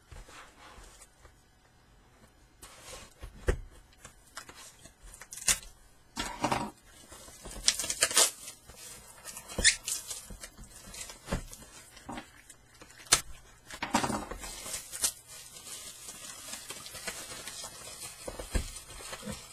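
Plastic shrink-wrap being slit and torn off a cardboard trading-card box, crinkling in irregular bursts with sharp clicks. Later come the rustle of the box being opened and a stack of foil card packs being handled.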